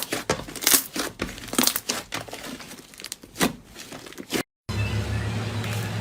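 Slime being pressed and squished, giving a run of irregular crackling, crinkling pops and snaps. About four and a half seconds in it cuts out briefly, and a steady low hum follows.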